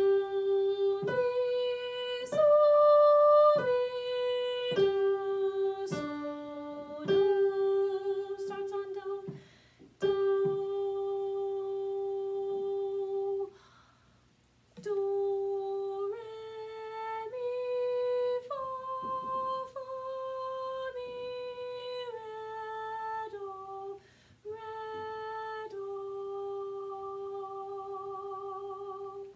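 A woman singing a sight-singing exercise alone on solfège syllables in G major, starting on do: a slow melody of held notes moving by step and small leaps, with two short breaks.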